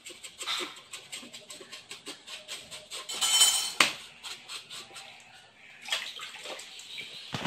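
Kitchen knife scraping quickly back and forth over a ray fish's skin on a wooden cutting board, several strokes a second, rubbing off the slime. About three seconds in the scraping grows louder and ends in a sharp knock of the blade. Near the end the blade scrapes across the bare board.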